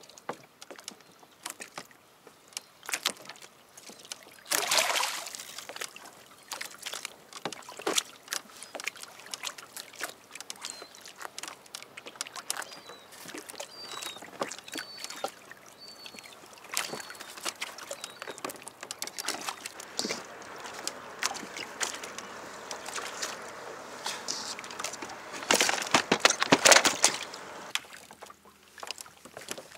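Water lapping and sloshing against a kayak's hull, with scattered small knocks and clicks, and two louder splashes: one about five seconds in, and a longer one near the end.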